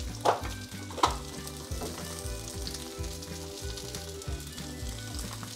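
Meatballs sizzling steadily as they fry in coconut oil in a frying pan. Two sharp knocks of the kitchen utensil come about a quarter second and a second in.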